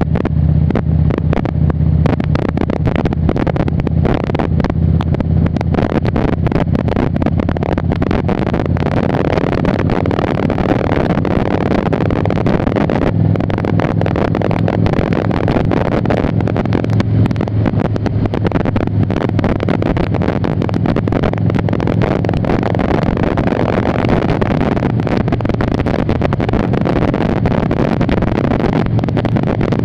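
2002 Harley-Davidson Ultra Classic's Twin Cam 88 V-twin running at road speed, its engine note shifting a few times with the throttle. Heavy wind noise on the microphone runs under it.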